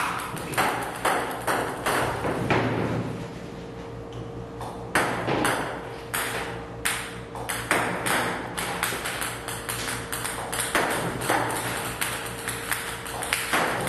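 Ping-pong balls fired by a table tennis robot, bouncing on the table and the net: a quick, irregular string of sharp clicks that lets up briefly about four seconds in.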